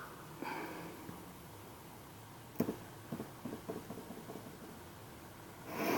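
Handling noise: a sharp click about two and a half seconds in, a run of small ticks after it, and a louder rustle near the end.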